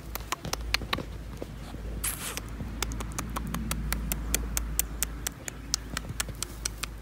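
Light rustling in the grass with many irregular sharp clicks, several a second, as baby rabbits scramble around a hand, with a short hiss about two seconds in.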